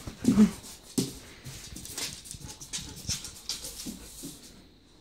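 White Swiss shepherd dog giving a short whimper about half a second in, then a run of light clicks from its nails on the laminate floor as it walks away, fading toward the end.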